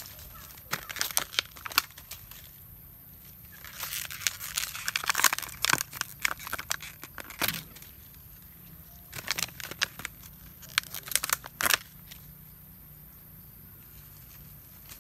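Empty thin plastic water bottle crinkling and crackling as it is handled and grabbed at, in three bursts of sharp crackles.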